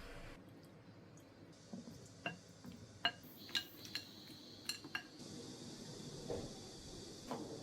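Kitchenware clinking: a run of sharp clinks, each ringing briefly, from about two to five seconds in, then a couple of softer knocks near the end.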